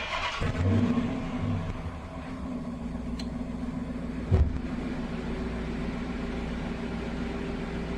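A car engine is started and catches within about a second. It swells briefly as it fires, then settles into a steady idle. There is a single thump about four seconds in.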